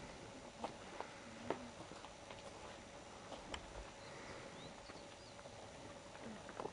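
Faint outdoor background with a few scattered light clicks and several short, faint high chirps near the middle.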